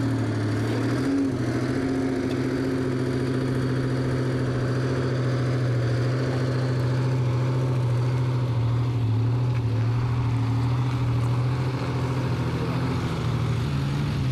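Naturally aspirated Detroit Diesel 12V71 two-stroke V12 in a 1975 Peterbilt, straight-piped through dual 6-inch stacks, running loud and steady as the truck drives off. Its low note shifts in pitch a few times.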